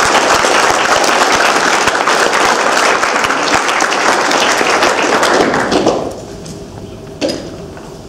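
Audience applauding, dying away about six seconds in, followed by a single knock.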